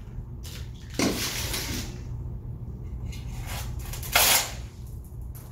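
Steel shovel scraping across a metal sampling plate as it scoops up loose asphalt mix: one longer scrape about a second in and a shorter, louder scrape just after four seconds.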